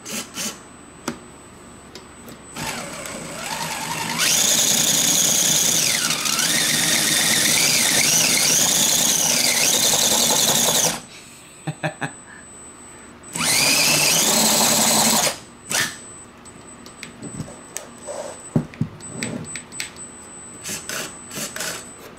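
Axial SCX10 RC crawler's electric motor and transmission whining under throttle in two runs, a long one and then a short one. The pitch rises and falls with the throttle. Scattered clicks and knocks follow. The owner suspects the transmission has been damaged.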